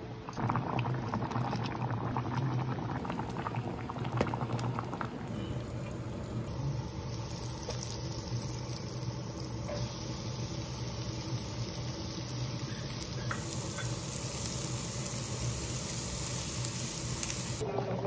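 Water bubbling steadily, a dense, even churning sound.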